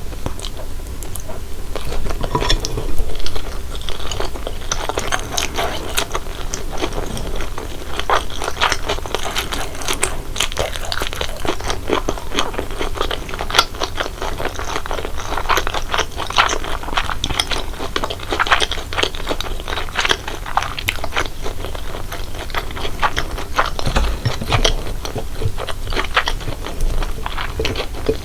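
Close-miked chewing and biting of corn-cheese Buldak spicy fried instant noodles, with a continuous run of irregular wet clicks and crunches from the mouth.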